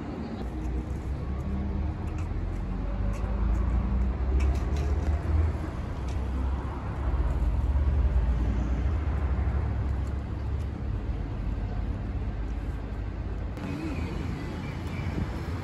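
Low rumble of a running motor vehicle, swelling and easing twice, with a faint steady hum and a few light clicks.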